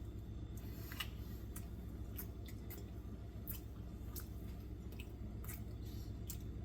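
A man eating and chewing a mouthful of ham and bean soup, with faint, irregular wet mouth clicks, over a low steady background hum.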